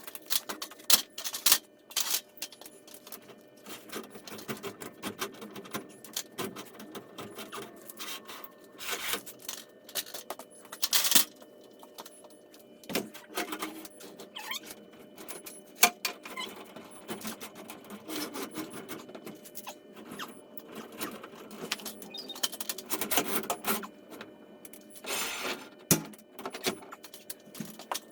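Irregular clicks, knocks and scrapes of metal garage door torsion spring hardware being handled, with a few louder knocks among them.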